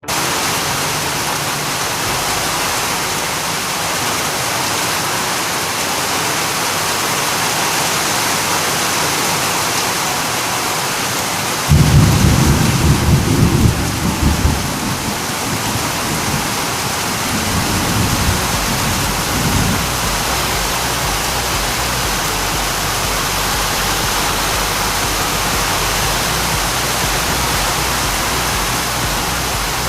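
Heavy rain falling steadily, with a loud clap of thunder a little before halfway that rumbles on for a few seconds, followed by a weaker roll of thunder soon after.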